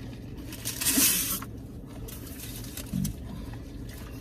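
Close-miked eating and food-packaging handling: a short crinkly rustle about a second in, like foil or a plastic lid being handled, with quieter mouth sounds and a short low sound near three seconds, over a steady low hum.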